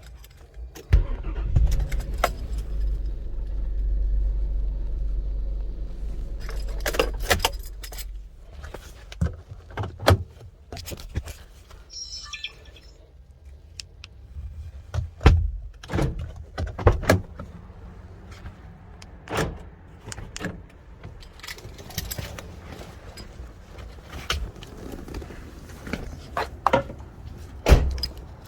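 Car keys jangling and clicking, with repeated sharp clicks and knocks. A steady low rumble runs from about a second in until about eight seconds in, and a brief high chirp comes near the middle.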